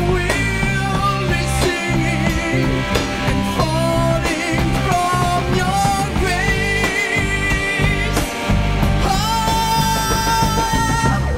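Rock band playing: a male singer sings with vibrato over electric guitar and bass guitar, holding one long high note near the end.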